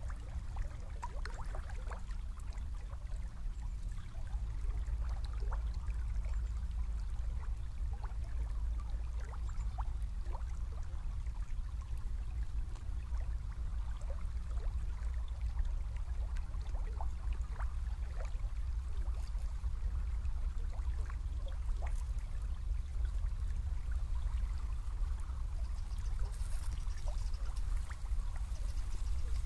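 Small river trickling and babbling, with many small plinks of water throughout, over a steady low rumble.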